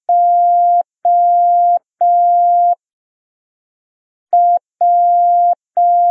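Morse code for the letter J (dit-dah-dah-dah) sent as a single steady electronic beep tone. The last three dahs of one J sound, then after a pause of about a second and a half the J is repeated: a short dit, then long dahs.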